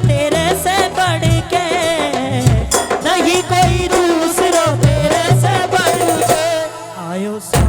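Instrumental interlude of a Rajasthani bhajan: a wavering, vibrato-laden melody over a steady folk drum beat. The music thins near the end, and one sharp drum hit comes just before it closes.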